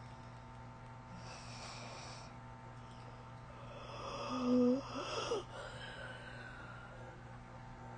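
A person snoring heavily: a faint airy breath about a second in, then one loud snore about halfway through whose pitch jumps upward, over a steady low hum.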